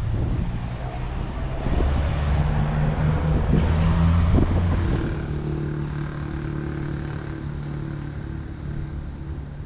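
Diesel locomotive engine of a freight train running with a steady low drone, loudest about two to five seconds in and then slowly fading.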